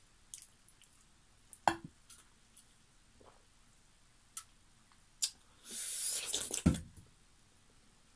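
Handling and drinking from a flip-top plastic tumbler: a few light clicks and taps of the lid, a sharper click about a second and a half in, a short breathy rush of air near six seconds, then a low thud as the tumbler is set down.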